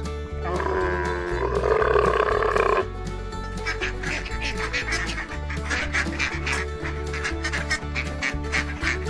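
Background music with a steady bass beat. Over it, a loud honking animal call lasts about two seconds, followed by a run of rapid short calls.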